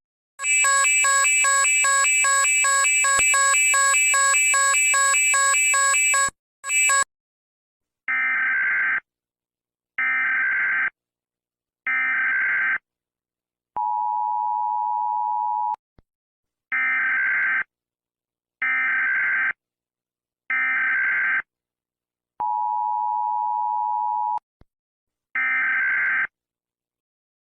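Emergency Alert System tones: about six seconds of a dense, buzzing multi-tone signal, then short data bursts in groups of three, each group followed by a two-second two-tone attention signal, with one more burst near the end.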